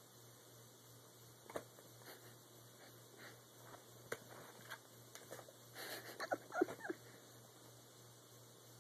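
A husky tapping and scratching at a laptop screen and keyboard with her paws and nose: light scattered taps, then a quick flurry of them about six seconds in, over a faint steady hum.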